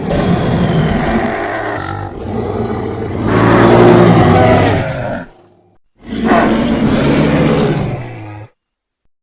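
Custom-made Euoplocephalus dinosaur roar sound effect: a long, low roar that swells to its loudest about halfway through, then after a short pause a second roar that cuts off abruptly.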